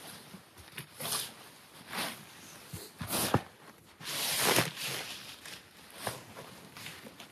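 Rustling and scraping of synthetic fabric and a sleeping pad being handled and pushed into a tent: a string of short swishes about once a second, with a longer, louder one about four seconds in.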